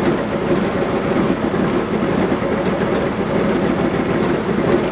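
Mitsubishi Lancer Evolution IV rally car's engine running steadily with the car standing still, heard from inside the cabin.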